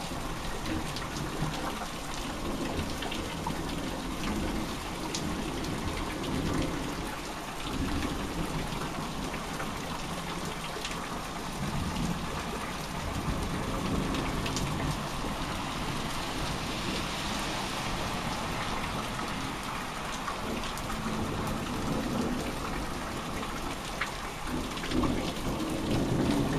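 Steady rain of a thunderstorm, with many sharp drop ticks on nearby surfaces. Low thunder rumbles swell up several times, loudest near the end.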